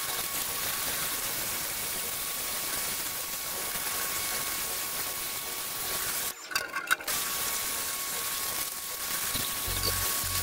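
Dedra 1900 W electric pressure washer running with a steady whine while its high-pressure water jet hisses against a dirty metal box. About six seconds in the spray stops for under a second, with a few clicks, then starts again.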